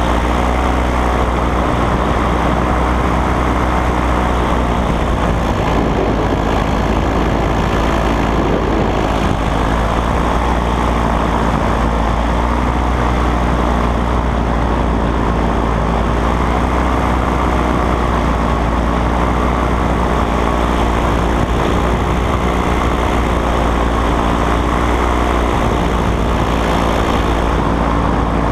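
Paramotor engine and propeller running steadily in flight, a continuous drone whose pitch wavers slightly now and then.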